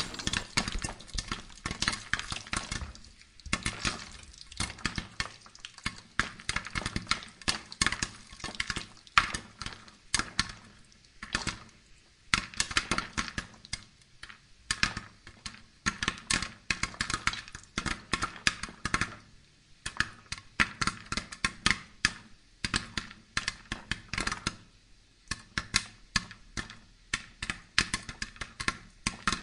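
Corn cobs roasting over glowing charcoal, with rapid, irregular crackling and clicking from the embers and the popping kernels.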